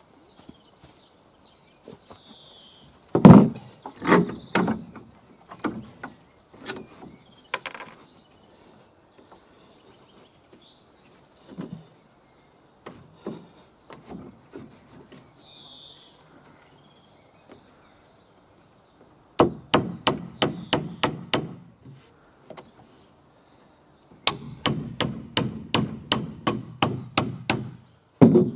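Hammer driving nails into a wooden stud-wall frame, tacking in temporary nails: two quick runs of sharp strikes about four a second in the second half, after a few scattered heavier knocks on the timber earlier.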